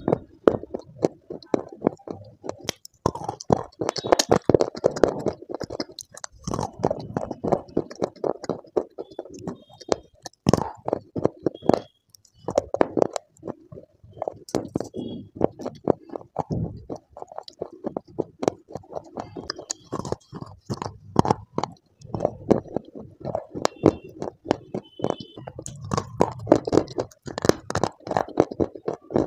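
Dry clay sticks being bitten and chewed close to the microphone: many sharp, irregular crunches and crackles, with a few short pauses between bites.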